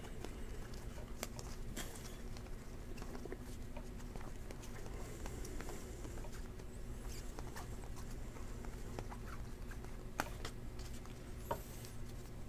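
Glossy chromium Panini Prizm baseball cards flipped through one at a time in the hands: a faint patter of light clicks and slides as each card comes off the stack, with a few sharper clicks, over a steady low hum.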